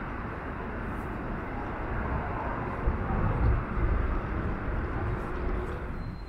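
City traffic ambience: a steady noise of road traffic, with a low rumble that swells about three seconds in as a vehicle passes close by.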